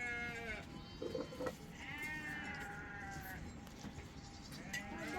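Sheep bleating: three drawn-out bleats, one at the start, a longer one about two seconds in, and another starting near the end.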